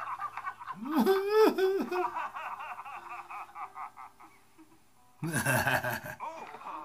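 People laughing: bouts of laughter with voices about a second in, then a loud, hearty man's laugh close to the microphone about five seconds in that lasts about a second.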